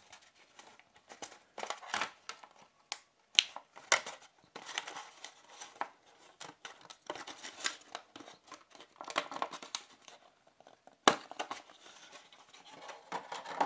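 Hands untwisting a wire twist tie and pulling earphones out of a stiff black plastic packaging tray: irregular scraping and crinkling, with a few sharp clicks, the sharpest near the end.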